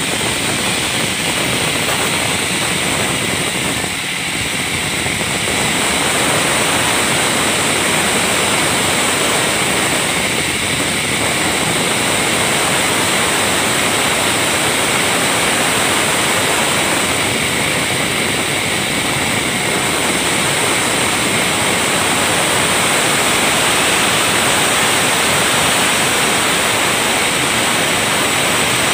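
Sawmill band saw running with a loud, steady, unbroken noise.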